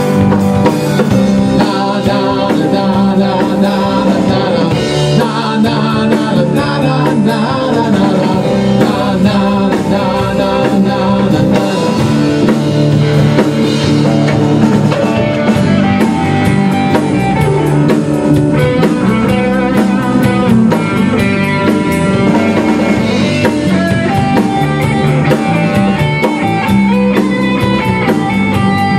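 A rock band playing an instrumental passage between verses: electric guitars over a drum kit.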